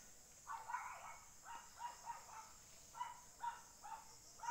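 A dog barking repeatedly, short barks about two a second, over a steady high chirring of insects.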